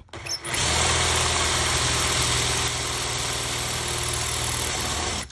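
Power drill with a TCT bit boring into an Ultion 3* euro lock cylinder. It starts about half a second in and runs steadily until it stops just before the end. The bit is meeting resistance at the cylinder's first set of hardened anti-drill pins.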